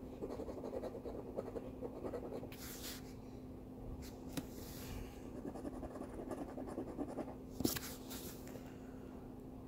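Scratch-off lottery ticket being scratched by hand, its coating rasping away in a run of short strokes, with a few sharper scrapes a few seconds in and again near the end.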